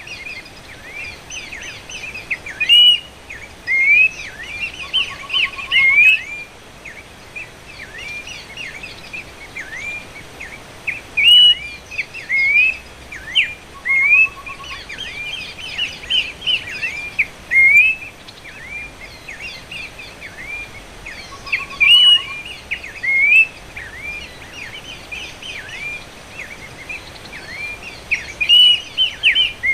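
Horsfield's babbler (pelanduk semak) calling: a continuous run of short, sharply rising and falling whistled notes, with louder bursts every eight to ten seconds. A short, low rattling note sounds three times.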